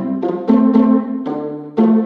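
Background music: a bouncy tune of short, struck notes changing every fraction of a second.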